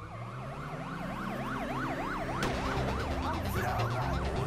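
Yelp siren wailing rapidly up and down, about four sweeps a second, over a steady low hum.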